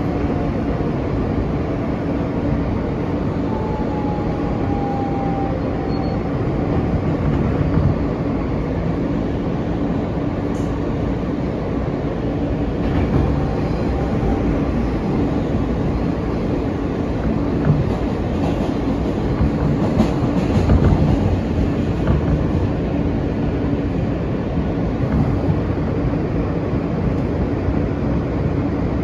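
Inside a moving R160B subway car on the N line, the train runs steadily with rail noise and a constant motor hum. A faint whine falls in pitch a few seconds in, and a few knocks and a louder rattle come about two-thirds of the way through.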